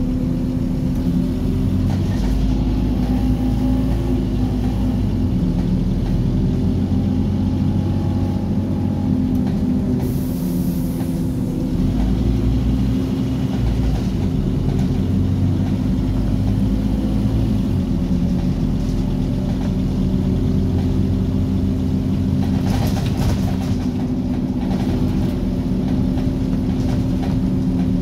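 Scania OmniCity bus heard from inside the passenger cabin while driving: the engine and driveline running with a steady whine, their higher tones slowly rising and falling as the bus changes speed. A short high hiss comes about ten seconds in.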